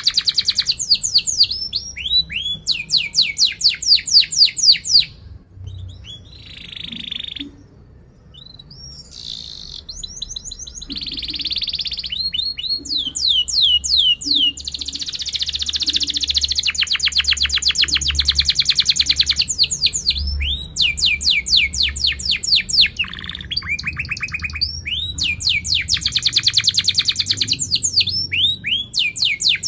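Domestic canary in full song: sharp phrases of fast repeated chirps and rolling trills, each lasting a few seconds, with short breaks between them.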